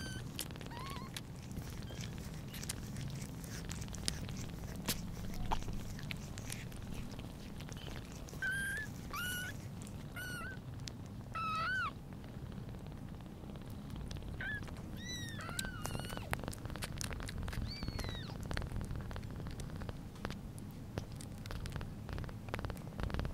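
Mother cat purring steadily, with a day-old British Shorthair kitten giving short, high, thin mews: a run of them a third of the way in and a few more a little past the middle.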